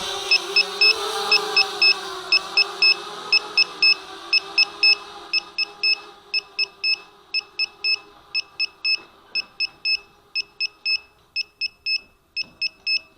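An electronic alarm beeping over and over in short bursts of two or three beeps, over a pitched hum that fades away over the first six seconds.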